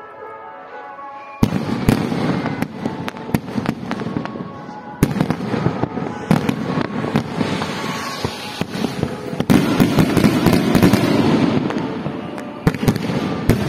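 Aerial fireworks going off. After about a second and a half of music, a sudden barrage of bangs and crackling starts and keeps going. Fresh surges of bangs come about five and nine seconds in.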